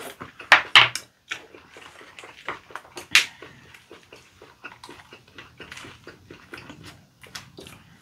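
Close-up mouth sounds of people eating leaf-wrapped rice (ssam): wet chewing with many small crackling clicks. A few louder sharp crunches or clacks come about half a second in, just before one second, and about three seconds in.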